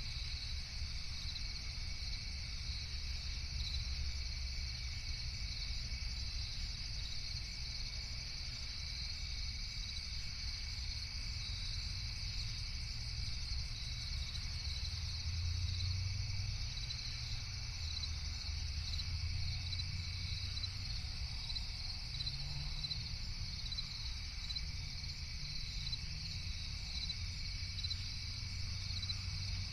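Steady night chorus of crickets, a continuous high trilling over a low rumble.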